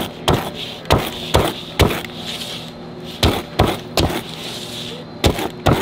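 Pizza wheel cutter slicing a crisp-crusted pizza on a metal pan: about ten sharp clacks in uneven groups as the wheel comes down on the pan.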